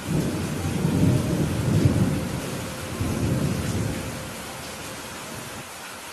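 Thunder rumbling low over steady, heavy rain; the rumble swells over the first two seconds and fades out about four seconds in, leaving the rain's hiss.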